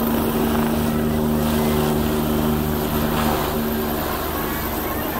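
Light helicopter hovering low, its main rotor beating in a fast, even pulse over a steady engine hum.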